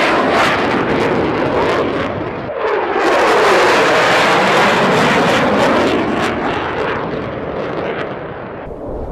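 F-15 twin-turbofan fighter jet flying low past, a loud jet roar whose tone sweeps down and back up as it goes by. The roar eases about two and a half seconds in, swells again with a second pass, and fades near the end.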